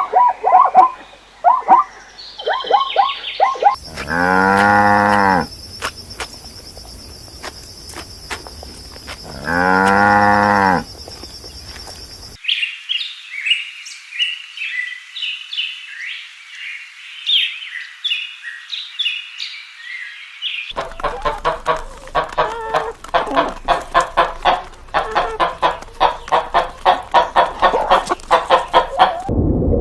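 Cow mooing twice in long drawn-out calls, set among other recorded animal calls: short repeated calls before, a stretch of high bird chirping after, then a fast run of short calls.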